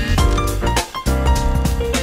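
Background music with a steady beat, with a brief break just before a second in.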